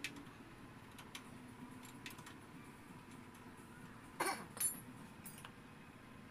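Hand work on a Yamaha Mio scooter engine under assembly: scattered light clicks of tools and parts, then two sharp clinks about four seconds in, the second one ringing briefly.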